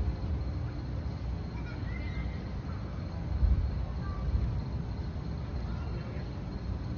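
Wind rumbling on a phone's microphone in uneven gusts, strongest about three and a half seconds in.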